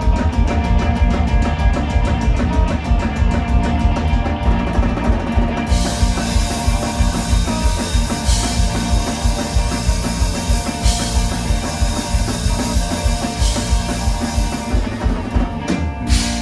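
Live rock band playing an instrumental passage: drum kit keeping a steady beat with bass drum under guitar. Cymbals come in about six seconds in, and the band closes on a sharp final hit near the end, leaving a chord ringing.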